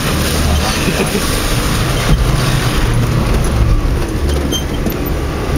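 Vauxhall Frontera Sport's engine running hard under load as the 4x4 climbs a steep bank out of a muddy pit, heard from inside the cab, with mud spattering against the windscreen.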